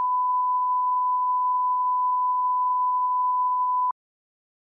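Steady 1 kHz line-up test tone, the reference tone played with colour bars, cutting off suddenly about four seconds in.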